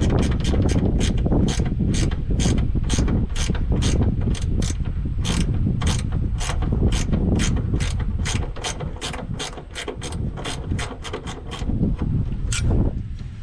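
Hand ratchet wrench clicking in quick back-and-forth strokes, about three clicks a second, while backing out a bolt. The clicking stops shortly before the end.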